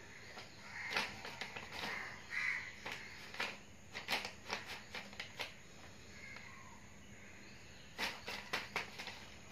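Thin plastic packaging bag crinkling and crackling in short bursts as kittens paw and pounce on it, with pauses between the flurries.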